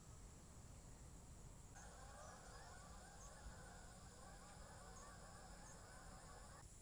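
Faint chatter of a flock of birds calling together over low background noise, with a few short high chirps. It starts suddenly about two seconds in and stops abruptly shortly before the end.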